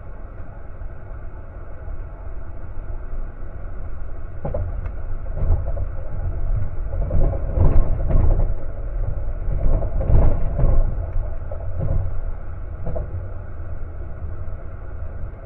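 ÖBB Nightjet sleeper train running on the rails: a steady low rumble, with a run of irregular louder clacks and thumps from the wheels through the middle as the train crosses the points and rail joints of a rail yard.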